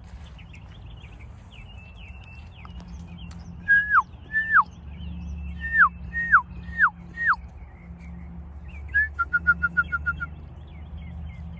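Loud, clear whistled notes: six that each slide down sharply, in two groups, then a quick trill of about eight short notes. Faint small-bird chirps run throughout.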